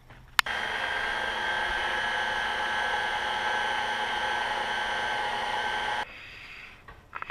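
KitchenAid Heavy Duty stand mixer's motor running steadily, driving a pasta roller attachment as dough is fed through. It starts suddenly with a click just under half a second in and cuts off about a second before the end.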